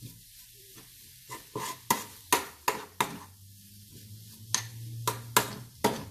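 Metal spoon stirring a dry, crumbly shredded chicken mixture in a stainless steel pan, scraping and striking the pan's sides in a series of sharp clinks that start about a second in.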